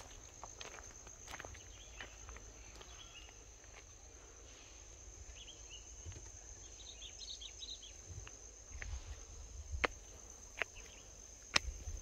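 Insects, likely crickets, trilling in one steady high-pitched drone, with scattered sharp clicks and light footsteps over the top.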